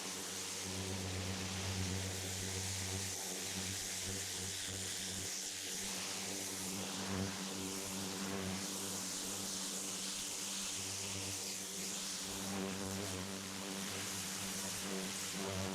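A steady motor hum, with a level drone and a hiss over it.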